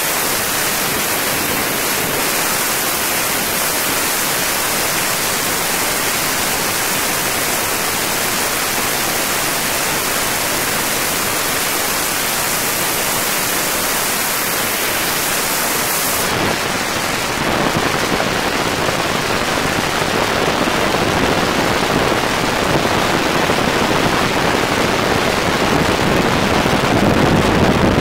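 Steady rushing wind and road noise picked up from a moving car at speed, with no engine note standing out. About sixteen seconds in the hiss loses its top and turns into a lower, slightly louder rush.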